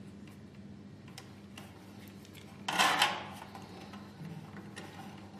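Small handling noises from wiring work on terminal connectors: light scattered clicks and a brief scraping rustle about halfway through, over a faint low hum.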